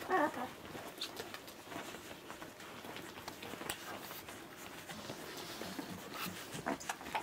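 Newborn golden retriever puppies nursing and squirming against their mother: a short, wavering squeak right at the start, then small clicks, snuffles and rustling on the blanket.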